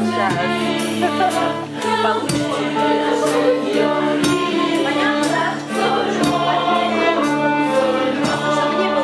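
Live acoustic ensemble playing: accordion, brass, double bass, drum kit and bowed strings hold steady low notes under a group of voices singing together, with regular drum strikes.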